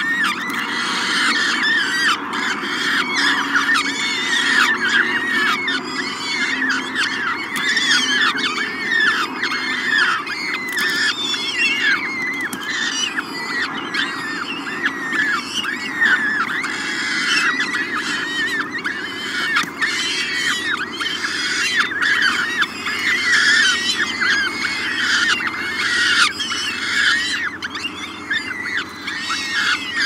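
Peregrine falcon chicks giving food-begging calls as they are fed: a rapid, continuous chorus of short calls, each dropping in pitch, several a second.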